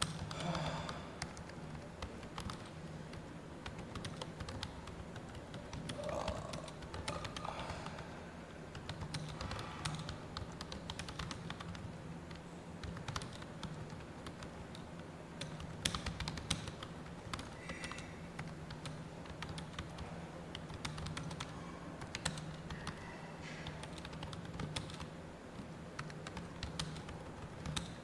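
Fast, continuous typing on a computer keyboard: keystrokes clicking in a quick, irregular stream during a timed typing test, over a steady low hum.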